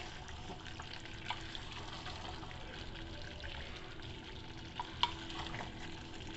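Mutton and vegetables sizzling in an aluminium pressure cooker pot while a wooden spatula stirs them, with a few sharp clicks of the spatula against the pot: once about a second in and twice close together about five seconds in.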